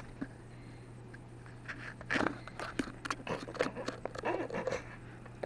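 Handling noise on a handheld camera: scattered rubs, taps and rustles as a leopard gecko clambers over the hand holding it and the camera is jostled. A steady low hum runs underneath.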